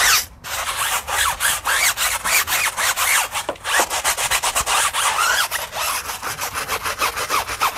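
Handheld tyre brush scrubbing a foam-covered rubber tyre sidewall in quick back-and-forth strokes, a steady scraping with small squeaks, as the foaming tyre cleaner is agitated.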